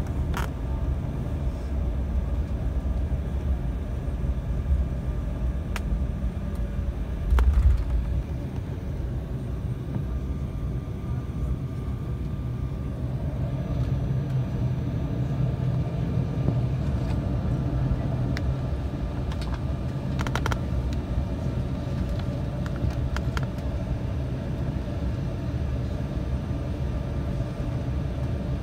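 Cabin noise of an Embraer 195 jet taxiing, heard from a window seat near the rear: a steady low rumble and hum from its GE CF34 engines at low thrust and the rolling gear. One louder thump about seven and a half seconds in, with a few faint clicks.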